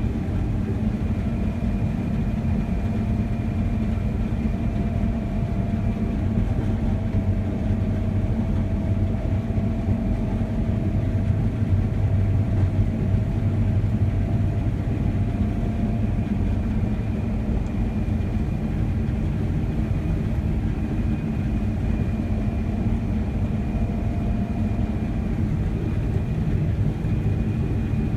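Combine harvester running steadily while cutting wheat, heard from inside the cab: a low, even drone with a faint steady whine above it.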